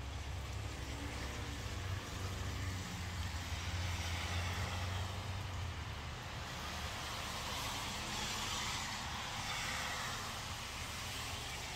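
Road traffic on a wet road: a low engine rumble for the first half, then tyre hiss swelling about two-thirds of the way through as a vehicle goes by.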